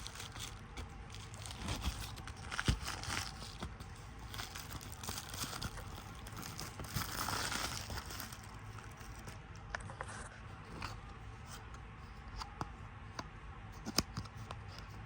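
Packaging being handled and torn open: crinkling and tearing, with scattered small clicks, busiest about halfway through.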